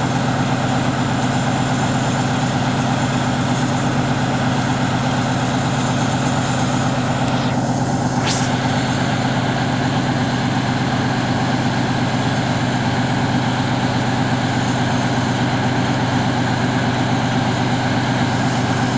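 Heavy diesel truck engine running steadily at a constant low speed.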